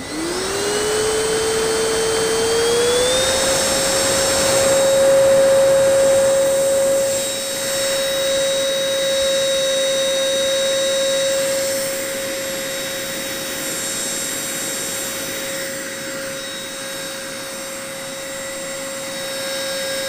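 Deerma VC20 cordless stick vacuum cleaner starting up: its motor whine rises in pitch as it spins up, steps up again about three seconds in as it goes to the higher speed setting, then runs steadily with a rushing of air.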